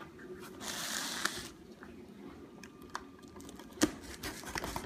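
Packing tape on a cardboard box being slit and torn open: a scratchy hiss about half a second in, lasting about a second, then light rustles and clicks of cardboard and one sharp knock near four seconds in.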